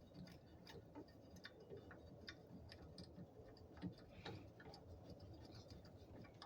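Faint, irregular small clicks and taps of metal hardware being handled while bolting a truck bed tool box in place.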